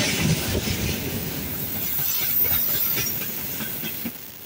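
Freight train wagons (hopper cars and open gondolas) rolling past at speed, their wheels rumbling and clicking over the rails. The sound fades near the end.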